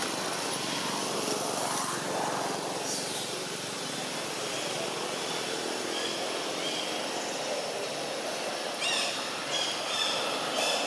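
Steady outdoor background noise, with a few short high-pitched chirps about nine seconds in.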